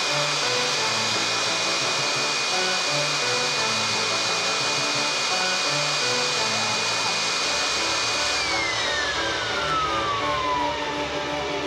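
Air blower running steadily: a rush of air with a high motor whine. About eight seconds in, the whine falls steadily in pitch as the motor winds down. Background music plays underneath.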